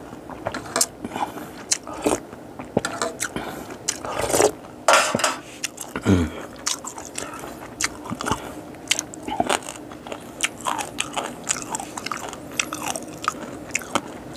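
Close-miked chewing and crunching as boiled whole narrow-mouthed frogs are eaten, with many short crisp crackles and clicks throughout. A brief falling hum comes about six seconds in.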